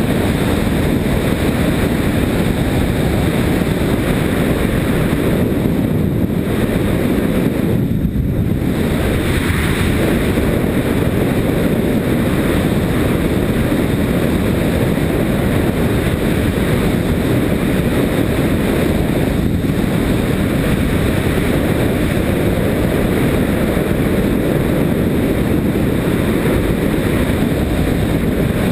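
Steady, loud wind noise on a helmet-mounted action camera while riding a Yamaha Ténéré motorcycle along a gravel track, with the bike's engine running beneath it.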